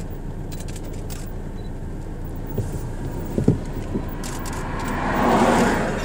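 A car passing close by, its noise swelling and fading about five and a half seconds in, over a steady low rumble.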